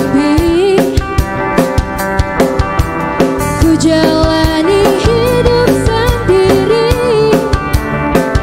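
Live pop band playing: a drum kit keeping a steady beat under electric and acoustic guitars, with a wavering lead melody line on top.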